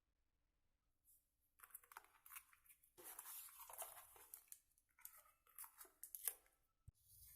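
Faint rustling and crinkling handling noise with many small crackles, then a sharp click near the end.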